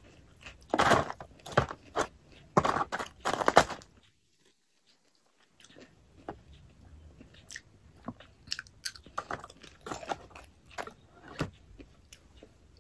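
Close-up chewing of crisp fried calamari: about five loud crunches in the first four seconds, a short pause, then quieter chewing with small clicks.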